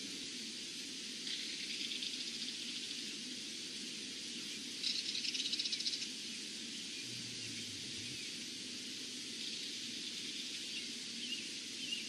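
Steady outdoor hiss with a small bird's high, buzzy trill heard three times: faintly a second in, loudest about five seconds in, and faintly again near ten seconds. Two short high chirps come near the end.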